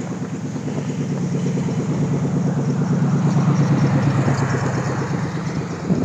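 An engine running at a steady pitch, growing louder toward the middle and easing off near the end, over blowing wind.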